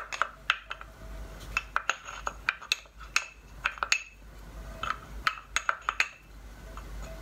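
A wooden spoon knocking and scraping against a glass jar while ghee is scooped out into a pot: a string of irregular, sharp clinks, each ringing briefly.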